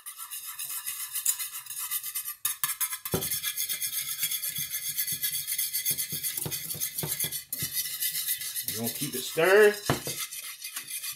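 Wire whisk stirring hot strawberry puree, scraping and clinking rapidly against the sides and bottom of a metal saucepan in a fast, continuous rhythm.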